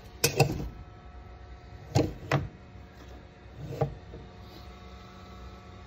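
Plastic filament spool knocking and clicking against its holder as it is slid into place on a 3D printer: a few sharp knocks, two close pairs and then a single one, over a faint steady hum.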